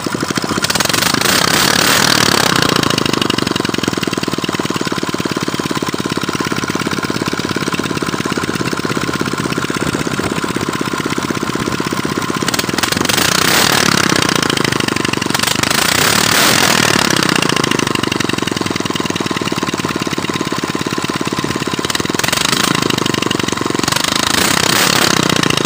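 Honda GX340 single-cylinder four-stroke engine test-running after a full rebuild. Its speed rises and falls several times as the throttle is opened and closed.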